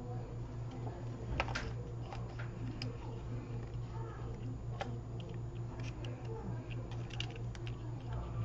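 Scattered light clicks and taps of small tools and phone parts being handled at a repair bench, over a steady low electrical hum.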